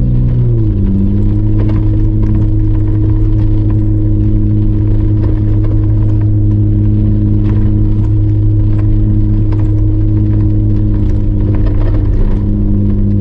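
Jeep Wrangler JK Unlimited engine running steadily at low speed on a dirt trail, its pitch dropping once about half a second in, with scattered knocks and rattles from the vehicle.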